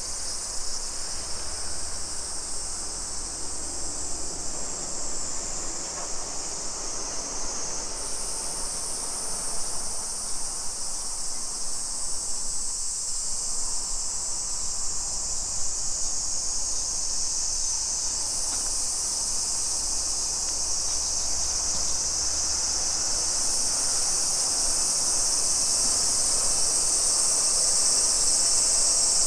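Loud, steady, shrill chorus of insects, its pitch stepping up about eight seconds in and shifting again later, over a faint low rumble.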